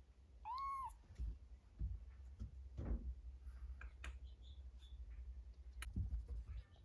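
A kitten gives one short, high mew about half a second in. Scattered soft clicks and rustling follow over a low rumble.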